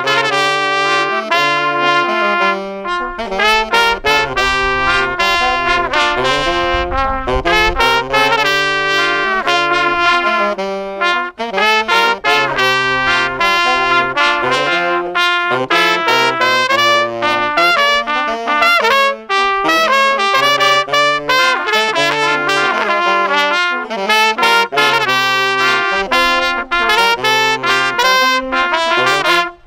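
A small ensemble of saxophones, trumpet and trombone playing a tune together in several parts, with a moving low line underneath.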